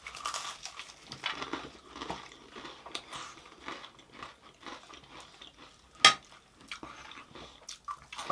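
Close-up mukbang chewing: biting and crunching into crisp fried food such as puri and jalebi, with irregular crackly crunches. One sharp click about six seconds in.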